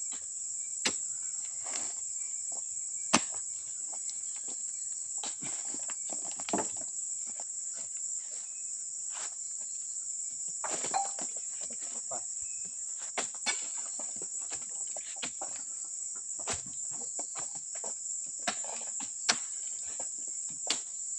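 Steady high-pitched drone of insects, with irregular sharp knocks and thuds as oil palm fruit bunches are speared with a pole and tossed onto a truck's load.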